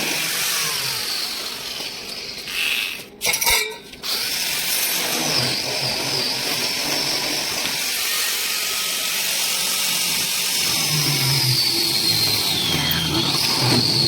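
A handheld power tool running, its high whine drifting up and down in pitch as the load changes. It breaks off briefly about three seconds in, with a couple of short sharp bursts.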